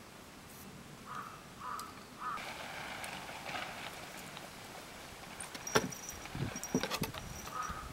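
A crow cawing, a short series of three calls about a second in and another series starting near the end. In between come a few sharp knocks and taps, the loudest just before six seconds.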